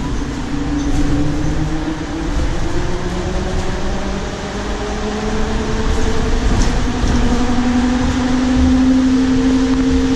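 Electric traction motor of a Nova Bus LFSe battery-electric bus (TM4 LSM280) whining, the whine climbing steadily in pitch as the bus gathers speed. Steady road rumble runs underneath, heard from inside the bus.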